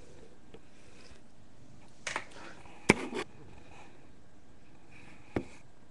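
Domestic cat purring faintly and steadily, broken by a few short knocks and rustles, the sharpest about three seconds in and another near the end.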